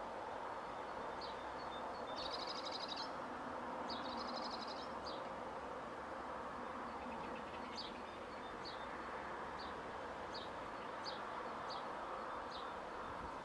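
Steady machinery drone from a commercial yard, one constant hum with a held mid-pitched tone that does not change, the noise put to neighbours as a possible nuisance. Birds chirp over it, with two quick trills a couple of seconds in and single chirps about once a second through the second half.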